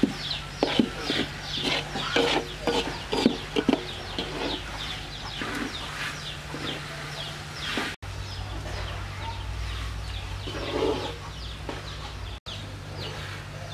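Chickens clucking repeatedly, with a spatula scraping and knocking against a metal wok in the first few seconds as sugared coconut strips are stirred.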